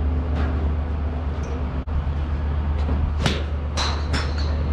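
A pitching wedge striking a golf ball off a hitting mat: one sharp crack about three seconds in, followed by a few more sharp clicks. A steady low hum runs beneath.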